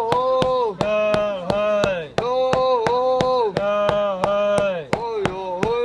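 Wooden mallet pounding walnut and sugar candy in a steady run of sharp strikes, about four a second. The strikes sound over a loud pitched melody whose phrases fall in pitch at their ends.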